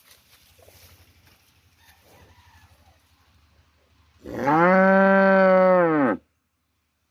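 A cow mooing: one long moo of about two seconds, beginning about four seconds in, its pitch rising slightly and dropping at the end before it cuts off abruptly.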